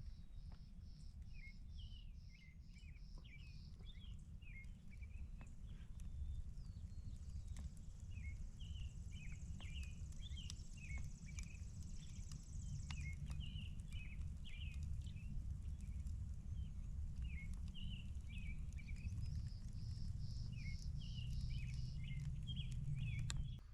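Birds chirping outdoors, with many short repeated calls and a rapid pulsed high trill at the start and again near the end, over a steady low rumble of wind.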